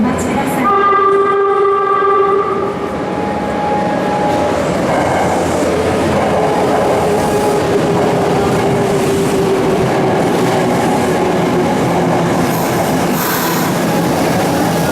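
A subway train's horn sounds one steady note for about two seconds. The electric train then runs along the platform with steady rail rumble and a faint motor whine.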